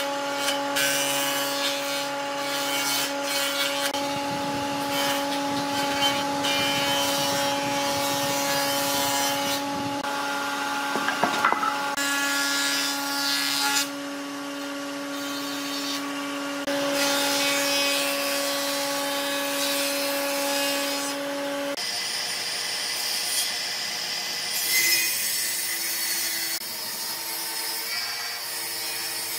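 Electric power tool running with a steady whine while working wood, a rough rasping noise over the motor tone with frequent small knocks. The motor's tone shifts about two-thirds of the way through.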